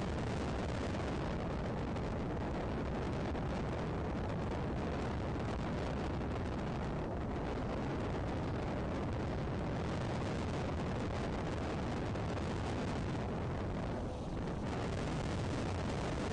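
Steady wind noise buffeting an outdoor microphone: an even, low rush with no distinct calls, easing briefly near the end.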